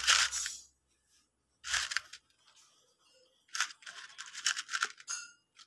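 Handling noise from an amplifier circuit board being moved by hand: several short scraping rustles, the longest and most crackly lasting about a second and a half near the end.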